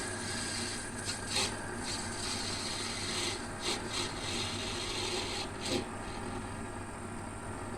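Small metal lathe running steadily with a faint hum and whine while the cutting tool faces off the end of a brass rod, scraping against the brass in several short bursts.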